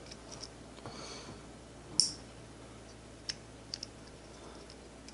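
Small sharp clicks and taps as a tiny bearing is pushed back into a baitcasting reel's side plate by hand. The sharpest click comes about two seconds in, followed by a few lighter ticks.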